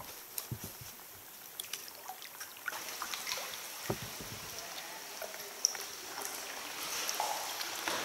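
Water dripping, trickling and lapping around a sea kayak in a sea cave: scattered drips and small splashes, with a couple of soft knocks.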